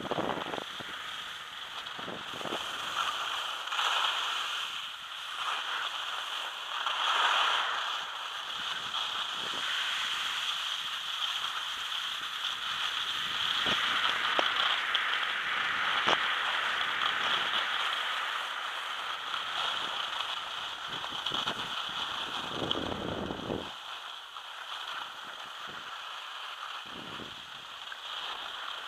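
Skis sliding and scraping over groomed, packed snow on a descent: a steady hiss that swells and eases several times, with a few light clicks.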